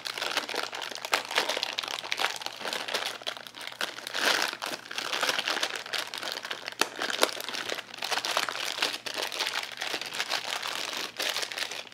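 Clear plastic packaging bag crinkling and crackling continuously as it is handled and pulled off a fishing reel by hand.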